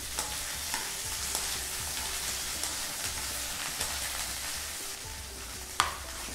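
Cut okra sizzling as it pan-fries in hot oil in a nonstick kadai, stirred with a wooden spatula. A sharp knock near the end.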